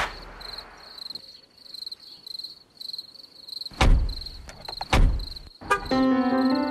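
Crickets chirping in a steady pulsing rhythm, with two car doors shutting about a second apart midway; background music comes in near the end.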